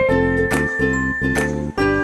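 Background music: a bright, tinkly instrumental tune with a steady beat.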